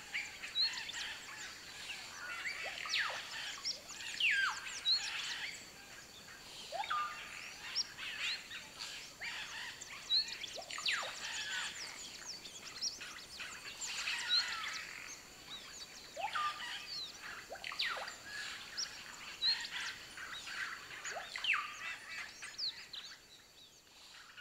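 Amazon rainforest ambience: many short, sharp chirps and quick downward-sweeping whistles, about one every second, over a steady high-pitched hum.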